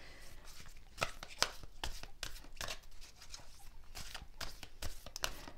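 A deck of cards being shuffled by hand: a run of short, papery snaps and flicks, a few a second and unevenly spaced.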